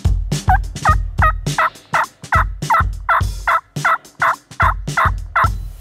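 Eastern wild turkey yelping in a steady run of about fourteen yelps, roughly three a second, over low thuds.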